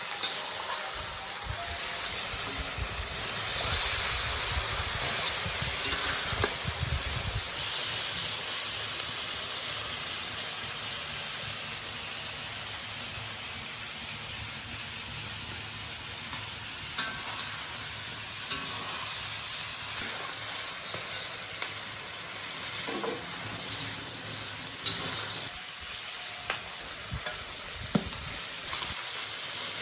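Chicken frying and sizzling in a large wok. The sizzle is steady, louder for a few seconds near the start, with a few short knocks of stirring in the second half.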